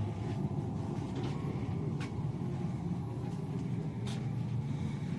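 A steady low rumble with two faint clicks, about two and four seconds in.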